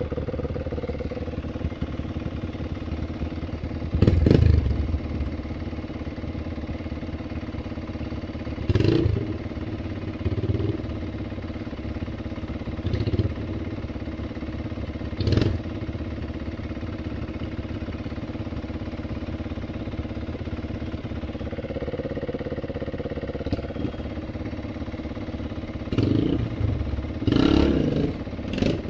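Four-stroke single-cylinder dirt bike engines: one idles steadily close by while a Yamaha TT-R230 is revved in short throttle bursts as it climbs a rutted ledge. The loudest burst comes about four seconds in, and a group of bursts comes near the end.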